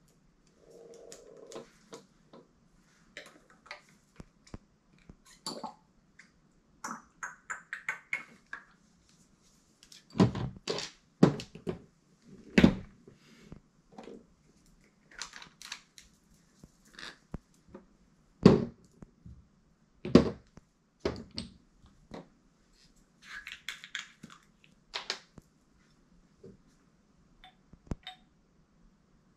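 Small glass fragrance-oil bottles and their caps clinking and knocking on a desk as they are picked up, set down and capped: an irregular run of sharp taps and clicks, with a few louder knocks.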